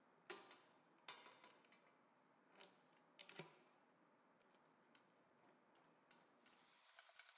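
Near silence broken by scattered faint metallic clicks and taps as the parts of a front inner axle seal installer tool, a threaded rod with a thrust plate, are handled and set in place inside the differential housing.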